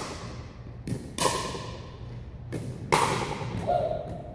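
Pickleball rally: sharp pops of paddles striking the plastic ball, alternating with softer bounces of the ball on the hardwood floor, each ringing with the echo of the large gym.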